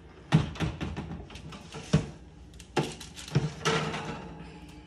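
Oven door being opened and a baking pan taken out: a series of clunks and knocks, about six in all, one followed by a brief ringing.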